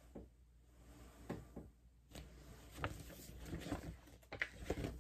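Faint handling noise: soft rustles and light knocks as a picture book and the recording camera are moved about, beginning about two seconds in.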